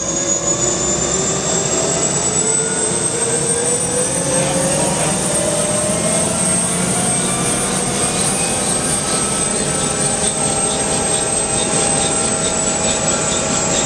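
Bell UH-1 Huey's Lycoming T53 turboshaft engine running up during a ground start after a rebuild. Its turbine whine rises in pitch over the first four or five seconds, then holds steady as the engine settles.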